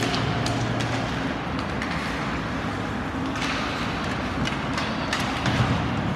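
Ice hockey game in play: a steady wash of rink noise with scattered sharp clicks and knocks from sticks, puck and skates on the ice.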